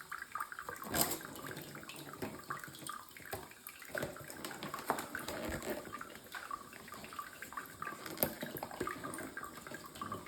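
Faint water trickling and dripping, with an irregular spattering.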